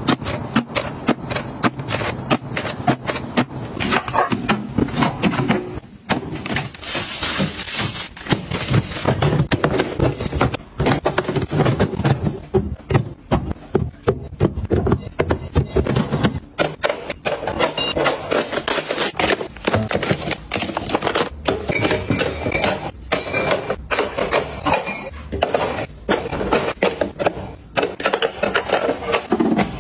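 Plastic storage containers and food packaging being handled and packed into a refrigerator: rapid clicks, taps and knocks, with a burst of rustling about seven seconds in.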